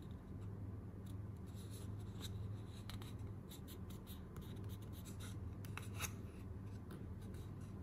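Fingers rubbing and pressing on the plastic housing and LED circuit board of an opened LED bulb: faint scattered scratches and small clicks over a low steady hum.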